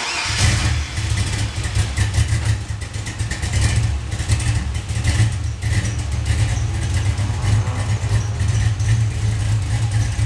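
A 6.0-litre LS V8 with a Sloppy Stage 2 camshaft fires up at the very start and runs at a loud, choppy idle.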